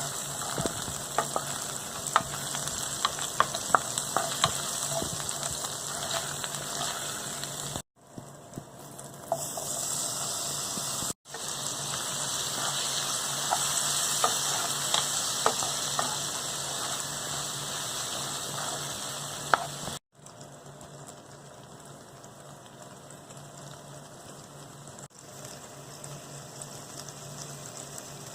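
Food frying in a hot pan, a steady sizzle with frequent sharp crackles of oil. It breaks off abruptly three times, and after the last break, about twenty seconds in, the sizzle is quieter with fewer crackles.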